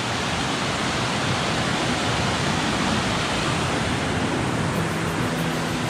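Shallow mountain stream rushing over rocks in a steady, even rush of water. Faint low steady tones come in near the end.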